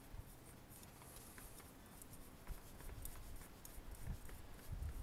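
Faint handling sounds of a spin-on oil filter being threaded by hand onto its engine mount: light scrapes, clicks and paper rustling, with a few soft low thumps in the second half.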